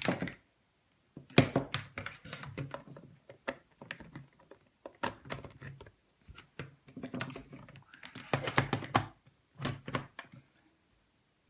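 Irregular plastic clicks, knocks and rustling in several bursts as a wall dimmer switch, its mains cable and plugs are handled and connected up to an extension strip.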